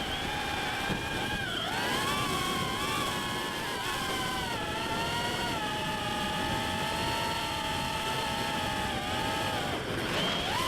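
DarwinFPV CineApe 35 FPV drone's brushless motors and propellers whining in flight, the pitch shifting with throttle: it dips briefly about two seconds in and again near the end before climbing. Rough wind noise runs underneath.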